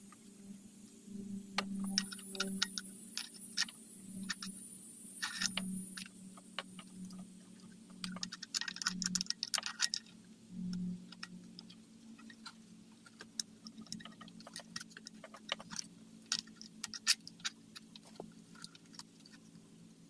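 Small clicks and taps of hands fitting a carburetor and its gasket onto a string trimmer's engine, plastic and metal parts knocking together irregularly, with a denser spell of rustling clicks a little before halfway.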